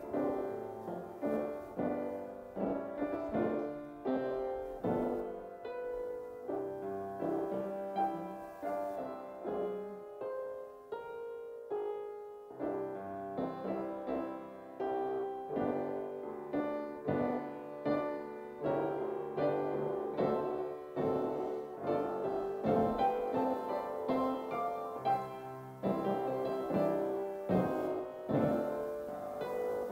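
Piano playing an instrumental piece, struck notes and chords ringing and fading, with a softer passage about ten seconds in.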